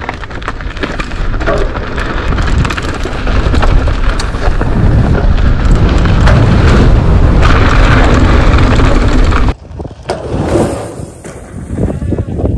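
Mountain bike rolling fast down a rough dirt trail: tyre noise and rattling of the bike, with wind buffeting the camera microphone. It grows louder over the first few seconds and drops off suddenly about three-quarters of the way through, turning choppier.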